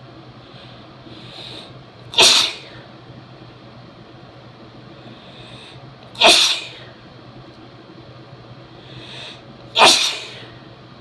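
A woman sneezing three times, each sneeze preceded by a short in-breath. The sneezes are strong and wet, from a head cold.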